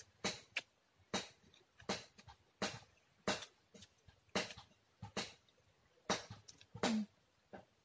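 Close-up eating sounds: mouths chewing and smacking on food, a sharp click or smack roughly every half second to second, with a brief hum near the end.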